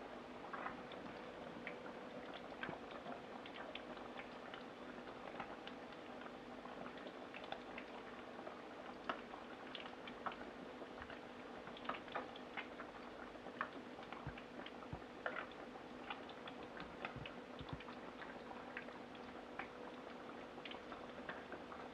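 Fish cakes deep-frying in a pot of hot oil: a steady bubbling hiss with scattered crackles and pops throughout.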